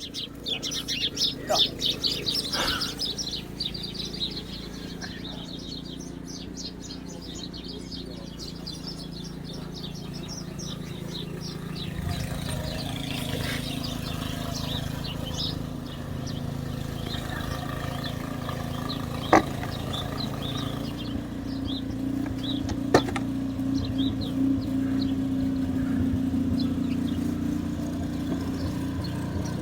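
Small birds chirping rapidly for the first few seconds, then more sparsely, over a steady low engine hum that grows louder through the second half. Two sharp clicks come about two-thirds of the way in.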